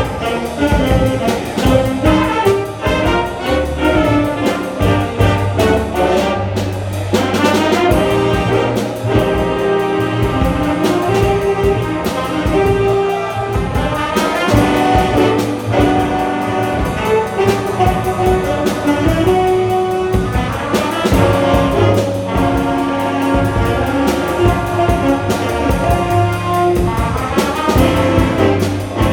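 Live jazz band playing: brass and saxophones carry sustained melody lines over a bass line and steady percussion hits.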